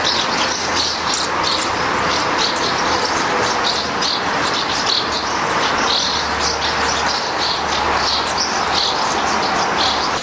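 Birds chirping in many short, quick calls over a steady, even hiss.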